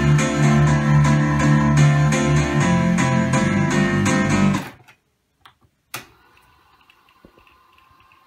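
Guitar music played back from a Technics RS-B905 cassette deck, cut off about four and a half seconds in as the transport is stopped. A couple of sharp mechanism clicks follow, then the faint steady whir of the deck rewinding the tape.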